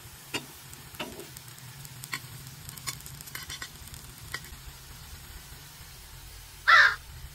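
Glutinous rice patties frying in oil in a nonstick pan: a steady sizzle with scattered sharp ticks and pops, and one short, louder sound near the end.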